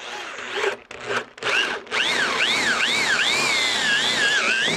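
Power drill boring a roughly half-inch hole through a wooden board: a few short starts, then a steady run whose whine dips and rises as the bit bites into the wood.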